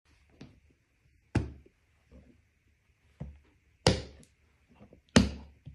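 Latches of a hard-shell shotgun case being flipped open one by one: three loud, sharp snaps about a second and a half apart, with a few softer knocks of hands on the case between them.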